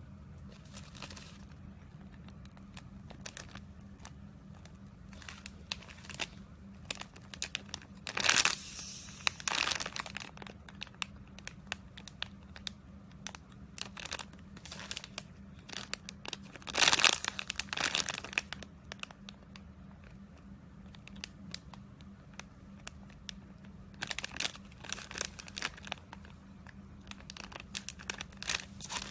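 Close-up crinkling and crackling, irregular sharp clicks with two louder bursts about 8 and 17 seconds in and a dense run of clicks near the end.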